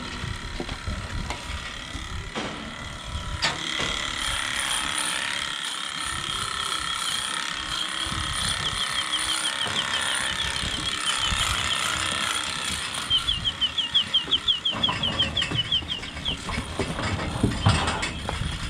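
Electric animal clippers running with a steady high whine while cutting the hair of a cow's tail switch. Two runs of rapid ticking ride on the whine, one midway and one toward the end, and the motor stops near the end.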